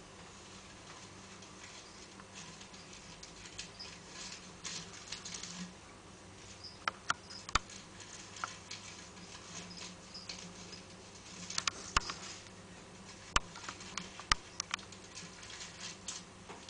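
Ball python shifting on loose wood-chip bedding as it swallows a mouse: soft rustling with scattered sharp clicks of chips knocking together, several louder clicks in the second half.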